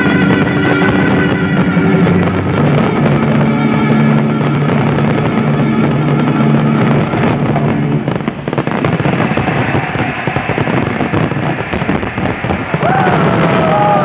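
Fireworks crackling and banging over music that is played with the display. The music's held chords fade about halfway through, leaving dense fireworks crackle, and a few rising-and-falling whistles come in near the end.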